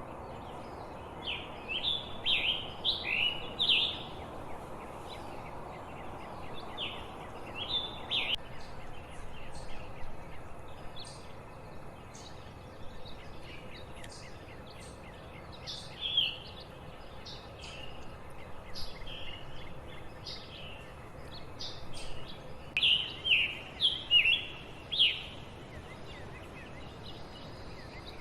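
Scarlet tanager singing: phrases of short, downward-slurred notes in quick groups, loudest during the first few seconds and again near the end. Thin high chips from other birds and a steady background hiss run underneath.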